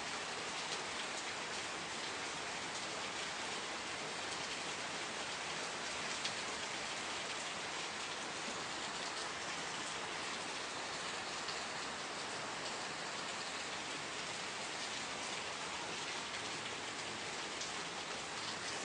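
Steady rain falling: an even hiss of rainfall with scattered individual drops ticking through it.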